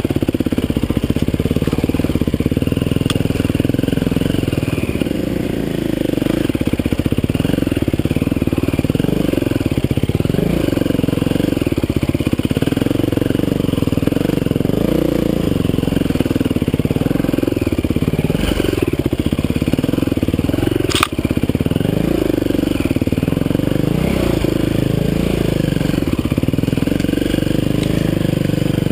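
Dirt bike engine running at low, varying revs, its pitch rising and falling every second or so as the throttle is worked over rough trail. One sharp knock about 21 seconds in.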